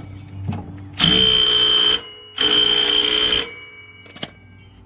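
DeWalt cordless impact driver run in two bursts of about a second each, rattling as it hammers the mounting bolt of a lawn tractor's double-stack pulley tight.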